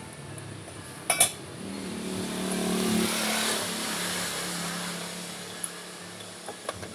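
A motorcycle engine running, revving up and easing back down over a few seconds, with a sharp click about a second in.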